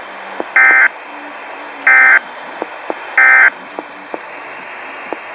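Three short bursts of a Weatheradio alert's digital header tones (SAME data), about a second and a half apart, over steady radio hiss with faint crackles. The bursts are the coded alert header that sets off weather radio receivers ahead of the warning.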